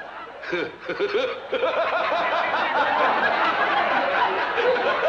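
A man's wild cackling laugh, swelling about one and a half seconds in into a dense, sustained wave of audience laughter.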